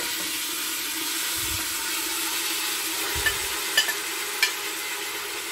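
Marinated lamb pieces sizzling steadily as they go into hot oil in a steel pot, with a few light clicks of a spoon in the middle.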